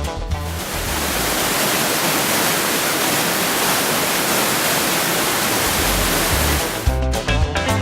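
Steady rush of falling water from a waterfall: a dense, even hiss across all pitches with no rhythm. Guitar background music stops about half a second in and comes back about seven seconds in.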